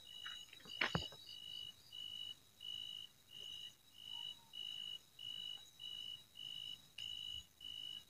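A night insect calling: a short high chirp repeated evenly about twice a second over a faint steady high drone. A sharp knock about a second in, likely the phone being handled.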